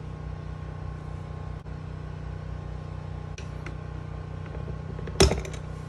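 A steady low hum runs throughout. About five seconds in comes one sharp, loud knock with a brief clatter, as a hard part or tool meets the wooden workbench.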